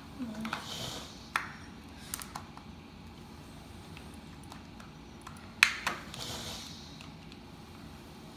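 Small plastic toy pieces clicking and tapping as they are handled, with brief rustles. This is a doll's toy suitcase and its accessories being packed, a suitcase that comes apart when overstuffed. The sharpest clicks come about five and a half seconds in.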